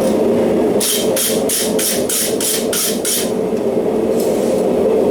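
Forge burner running steadily, with a run of eight quick scraping strokes on metal, about three a second, starting about a second in.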